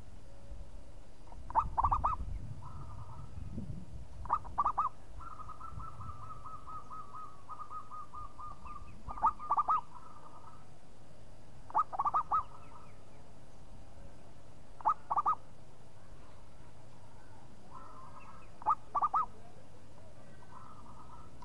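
Zebra dove (perkutut) cooing: about six phrases of short, loud cooing notes spaced every few seconds, with a long, softer rolling trill in the first half.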